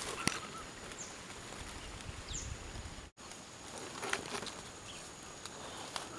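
Quiet forest ambience: a steady high-pitched whine, two short falling bird chirps about one and two seconds in, and scattered faint clicks and leaf rustles. The sound cuts out briefly about three seconds in.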